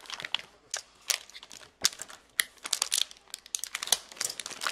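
Plastic wrapping and trading-card packaging crinkling as it is handled and torn open, an irregular run of sharp crackles.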